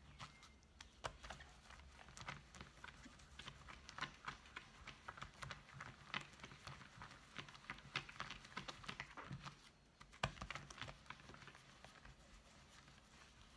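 Soapy hands rubbing wet merino-silk wool felt against a textured plastic mat: quiet, irregular wet squishing and small clicks, a few a second, with a louder one about ten seconds in. This is the rubbing stage of wet felting, firming the fibres and edges around the resist.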